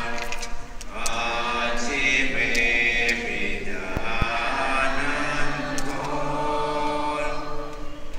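A group of voices chanting Buddhist prayers in unison, on long held notes with short breaks between phrases.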